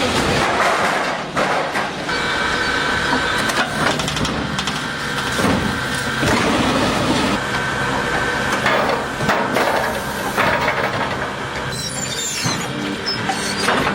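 Heavy wood-processing machinery running on logs: steady grinding and rumbling with frequent knocks of wood, and a high whine that comes and goes.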